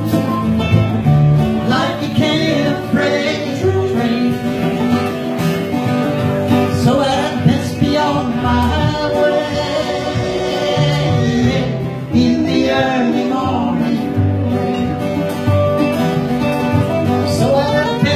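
Live acoustic guitar playing a country-folk song, with a man singing over it.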